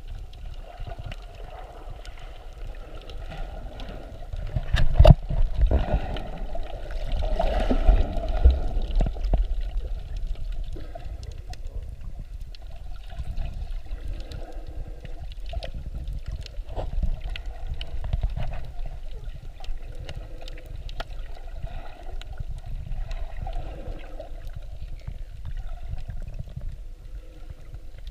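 Sea water heard from just under the surface: a muffled rush and slosh of moving water with a low rumble and scattered sharp clicks, loudest from about five to nine seconds in.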